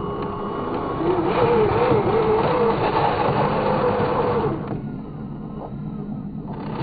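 Small electric motor and plastic gearing of an RC construction model whining under load, louder for about three and a half seconds from about a second in, its pitch wavering, over a steady low hum.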